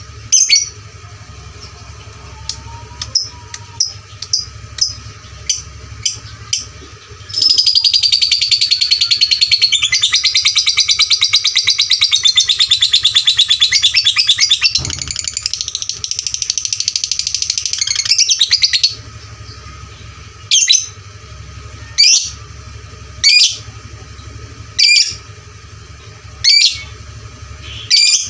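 Lovebird singing: sharp single chirps, then about seven seconds in a loud, fast, unbroken chattering trill (ngekek) lasting about eleven seconds, then back to single chirps spaced about a second and a half apart.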